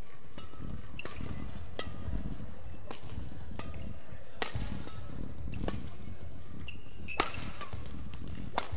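Badminton rackets striking a shuttlecock back and forth in a doubles rally, about eight sharp hits roughly a second apart, the loudest about seven seconds in. Short shoe squeaks on the court floor come between the hits.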